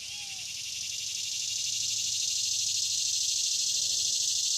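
A dense insect chorus of fine, fast pulsing buzz that swells steadily louder. Faint kitten mews are heard near the start and again near the end.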